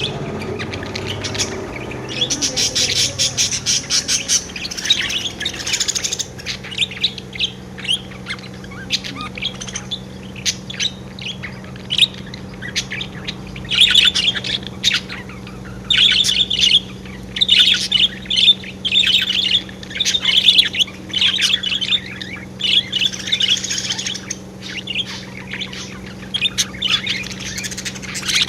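Pet budgerigars chirping and chattering. There is a dense burst of warbling chatter a couple of seconds in, then a run of short chirps repeating about once a second.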